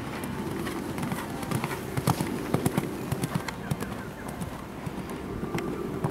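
Hoofbeats of a show-jumping horse cantering on sand arena footing: a run of dull thuds, with the loudest strikes about two to three seconds in.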